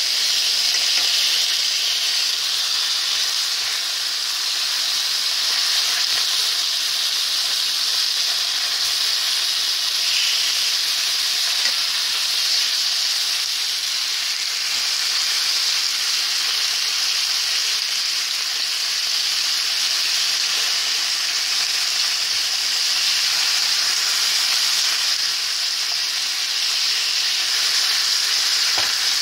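Meat frying in hot oil in a nonstick frying pan: a steady sizzle.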